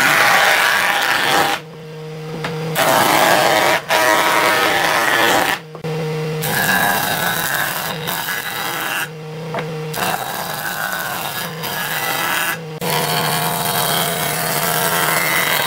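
Jointer running with wooden boards fed across its cutterhead: several passes of loud rough cutting noise, each a few seconds long. Between passes the machine's steady hum shows through.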